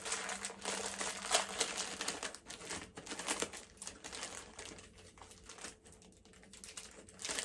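Plastic snack packaging crinkling and rustling as it is handled, in irregular crackles that are busier in the first half and thin out, with a sharper crackle near the end.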